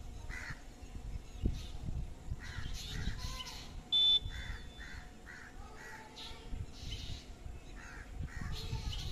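Crows cawing repeatedly, short harsh calls in quick runs. About four seconds in, one brief, loud, shrill squeal stands out above them.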